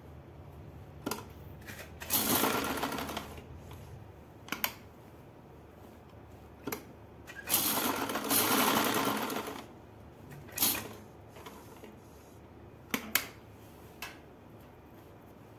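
Domestic sewing machine stitching cloth in two runs, each a second or two long, with several short sharp clicks in between as the fabric is moved.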